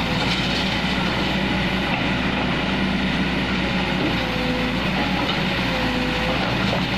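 Kobelco hydraulic excavator's diesel engine running steadily while the machine works, with a faint whine that rises and falls in pitch a few times.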